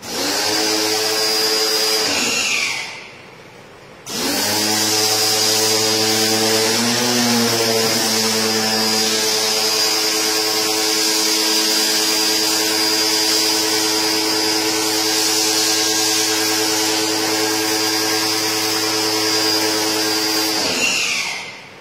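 Electric pressure washer running, with the hiss of its water jet over the motor's steady hum. It runs about two seconds and winds down, starts again about four seconds in and runs steadily, then winds down near the end.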